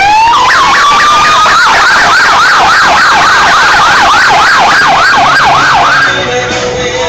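Police motorcycle siren: a rising wail that switches to a fast yelp, sweeping up and down about three times a second, then cuts off about six seconds in.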